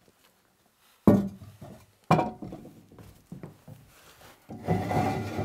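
A ceramic toilet set down on a tiled floor: two sharp knocks about a second apart, a few lighter ones, then a sustained scraping rub as the pan is slid back toward the wall.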